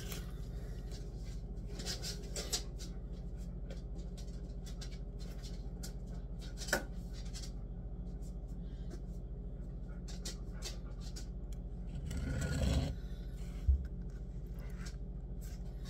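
Light handling noise of a phone camera on a kitchen counter: a few small clicks, a rubbing scrape about twelve seconds in and a soft thump just after, over a steady low hum.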